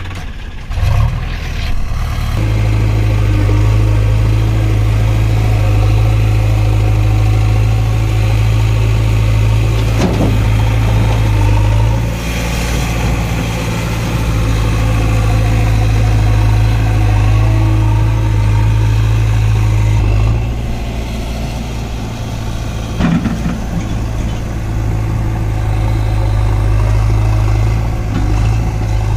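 Sonalika DI 47 RX tractor's three-cylinder diesel engine running steadily at idle, its level stepping down and up a few times, with a couple of brief knocks.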